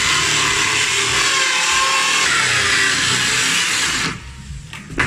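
Hand-held power saw cutting through an OSB panel, running steadily and then stopping abruptly about four seconds in. A sharp knock follows near the end.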